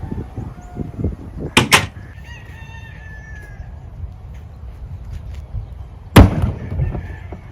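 Two sharp knocks in quick succession about a second and a half in, then a heavy, loud impact about six seconds in, over a steady low rumble. Between the knocks and the impact, a rooster crows once in the background.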